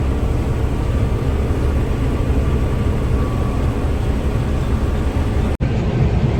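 Combine harvester running steadily while cutting oats: a continuous low engine and machinery drone with a faint steady hum over it. The sound cuts out for an instant near the end.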